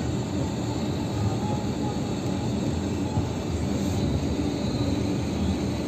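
Steady rumble of a car driving on a wet road in rain, heard from inside the cabin: tyre noise on the wet surface and the engine running.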